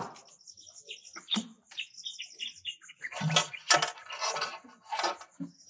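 Marinated whole chickens being handled and tied onto a metal skewer rod with wire: sharp metallic clicks near the start and about a second and a half in, then a run of wet handling and scraping sounds about three to five seconds in.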